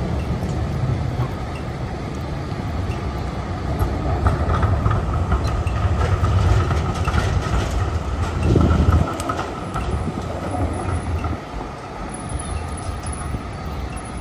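A train or tram running close by with a loud low rumble and a thin steady whine. The rumble drops away suddenly about nine seconds in, leaving quieter street noise.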